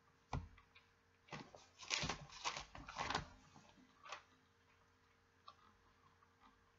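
Faint sound of Bible pages being turned by hand. A cluster of short papery rustles starts about a second in and lasts a couple of seconds, with a few light taps before and after.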